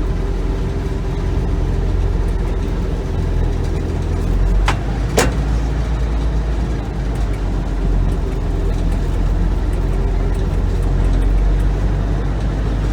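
Gleaner M2 combine's engine running steadily as the machine backs away in reverse, a low drone with two sharp clicks about five seconds in.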